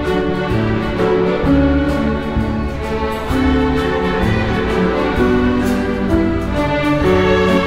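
Youth symphony orchestra playing a light orchestral arrangement, strings carrying sustained, changing chords and melody, with brass in the mix and faint regular ticks on top.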